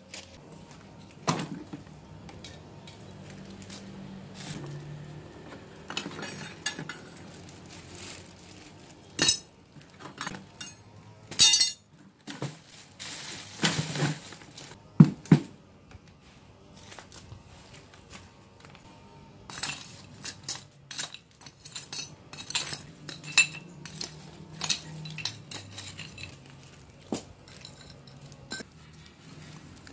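Metal hand tools, including a hand saw and a trowel, clinking and clattering against each other in a plastic bucket as they are handled, with knocks and scrapes of stones and rubble being dug through. The clinks and knocks come irregularly, with the loudest cluster about halfway through.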